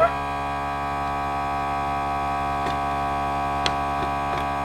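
Air compressor running with a steady hum, with a few faint light clicks in the second half.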